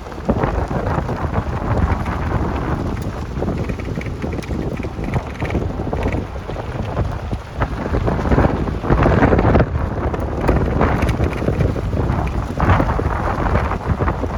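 Wind buffeting the microphone in uneven gusts, a low rumbling noise with stronger gusts about nine and thirteen seconds in.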